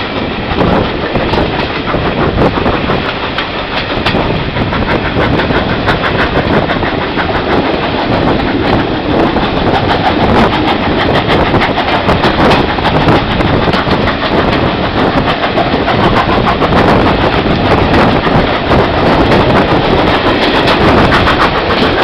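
Steam-hauled passenger train running at speed, heard from an open carriage window: a continuous rush of running noise with the wheels clicking rhythmically over the rail joints, growing a little louder in the second half.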